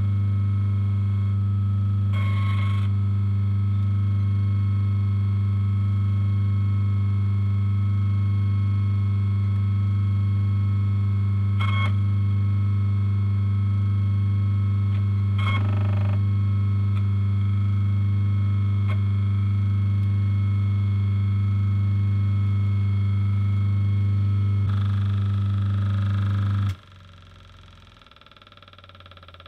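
Four-pole single-phase induction motor from a bench drill running free off load with a loud steady hum and a higher whine, which could be the bearings or the centrifugal starting switch. A few light clicks from power-meter buttons sound over it. Near the end the motor is switched off: the hum cuts off suddenly and the motor begins to spin down.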